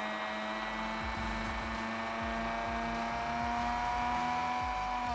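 Food processor motor running at speed as it grinds boiled chickpeas, a steady high whine with irregular low knocks from the load. The whine creeps slightly higher, then the motor is switched off at the very end and spins down.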